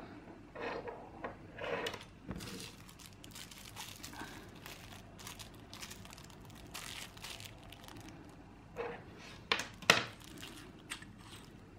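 A small clear plastic bag crinkling and rustling in the fingers as it is handled, in irregular bursts, with a few sharp crackles about nine to ten seconds in.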